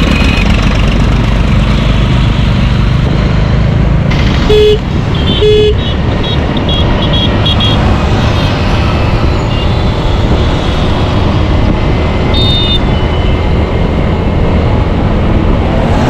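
Wind rushing over the microphone and motorcycle engine noise while riding in city traffic, with two short horn beeps about four and a half and five and a half seconds in, and fainter horn toots from other vehicles.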